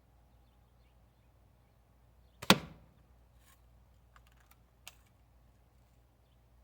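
Daisy Red Ryder BB gun firing a single shot about two and a half seconds in, one sharp crack, followed a second or two later by a few faint clicks.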